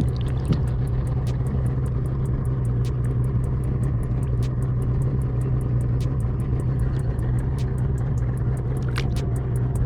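Boat motor running steadily: a low, even hum with a fast, regular ticking over it.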